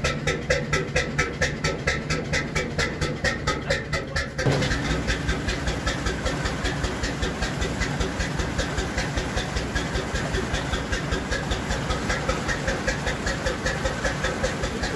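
1958 Brons two-cylinder slow-running diesel engine running steadily, its exhaust beating in an even, slow rhythm. About four seconds in, the rush of churning wake water joins the exhaust beats.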